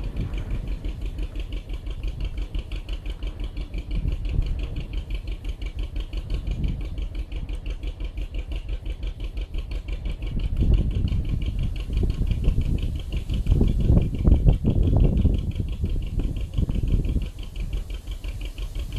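Narrow boat's inboard diesel engine running steadily at cruising speed with a regular beat, with a few louder spells in the second half.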